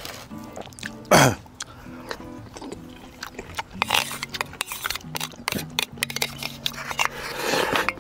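Background music with a steady melody, over which someone slurps and chews instant noodles. A loud slurp comes about a second in, with shorter slurps and mouth clicks later.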